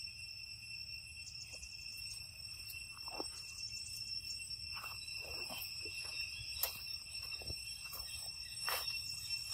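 Steady high-pitched insect drone, with faint short chirps scattered throughout and a sharp click about two-thirds of the way in.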